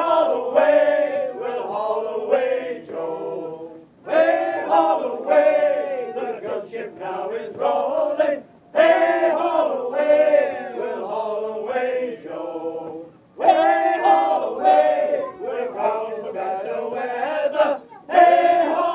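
Male shanty group singing a sea shanty together in chorus, unaccompanied. The song comes in four long phrases of about four and a half seconds each, with a short breath between them.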